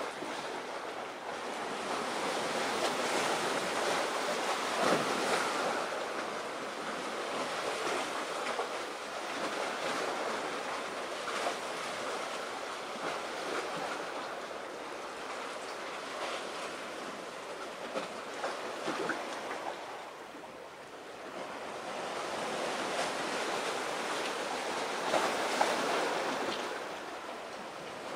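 Sea surf washing on the shore: an even hiss that swells and fades every several seconds.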